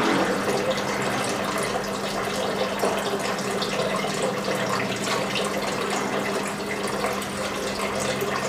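Aquarium top filter running: water splashes steadily as it falls back into the tank, over a steady low pump hum.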